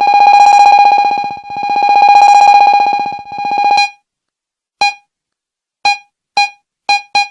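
Electronic phone ringtone: a buzzing synthesized tone held at one pitch swells up and fades twice, then breaks into short beeps that come faster and faster toward the end.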